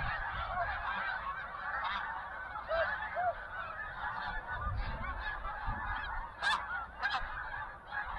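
A large flock of snow geese calling: a dense, continuous chorus of many overlapping honks, with single calls standing out above it now and then.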